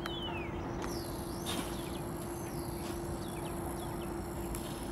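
Birds calling with several short, falling whistles over a steady mechanical hum and the noise of the airport apron.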